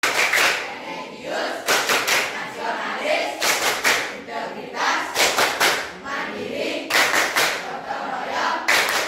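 A group of voices chanting or singing in unison, with a rhythmic pattern of quick clusters of two or three claps about every second and three-quarters.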